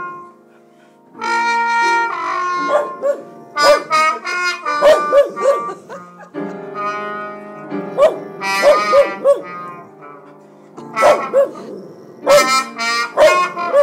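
Cavalier King Charles spaniel barking in quick short bursts, singing along with a slide trombone and piano playing jazz. The music and barking start up about a second in, after a brief pause.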